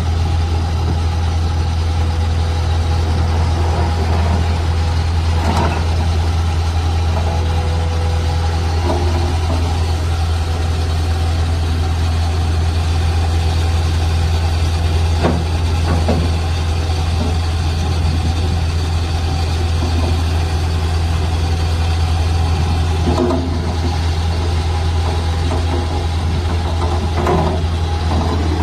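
Kubota SVL75-2 skid steer's 68.8 hp Kubota diesel engine running at a steady idle, with a few light knocks now and then.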